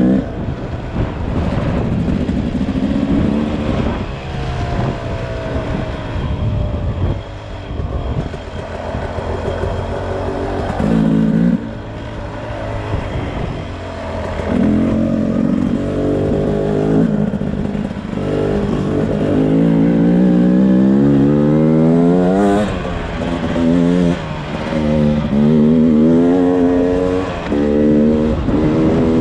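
Beta RR 300 single-cylinder two-stroke engine revving up and down under throttle, its pitch climbing repeatedly and falling back, with one long climb in pitch about two-thirds of the way in.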